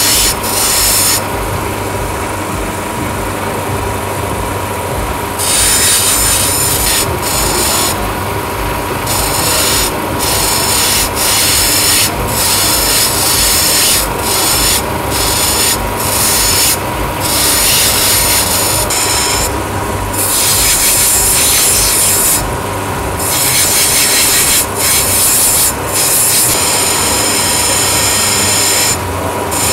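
Agate stone pressed by hand against the spinning wheel of an electric gem-grinding machine, a loud rasping grind over the steady hum and whine of the motor. The grinding hiss breaks off several times, for about four seconds near the start and briefly later, as the stone is eased off the wheel.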